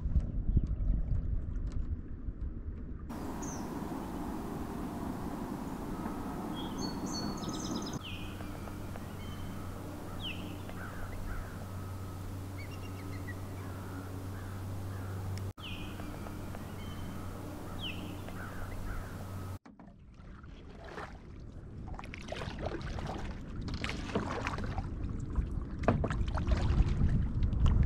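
Outdoor lake ambience with birds giving short chirps and down-slurred calls, over a steady low hum through the middle stretch. In the last several seconds, irregular splashing and knocking from the canoe and paddle grow louder.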